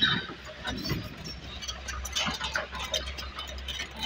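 JCB 205 crawler excavator working: a steady low engine hum under irregular clanks, clicks and squeaks from the machine's metal parts.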